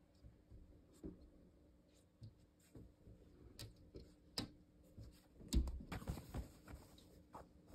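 A kitten's paws and claws tapping and scratching at a fabric curtain in light, scattered strokes. About five and a half seconds in there is a louder burst of rustling with a soft thump as the curtain is grabbed and moved.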